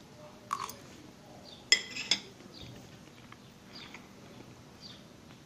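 Metal fork clinking against a plate or dish: a light tap about half a second in, then a sharp ringing clink a little before two seconds in, with a smaller knock just after.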